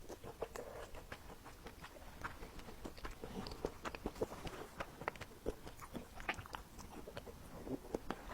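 Close-miked eating sounds: biting into and chewing a pan-fried meat pie filled with mashed potato, with many small sharp clicks throughout.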